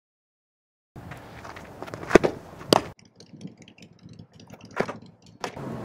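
Softball fastball pitch after about a second of silence: two sharp smacks about half a second apart, the pitcher's windmill release and the ball popping into the catcher's mitt.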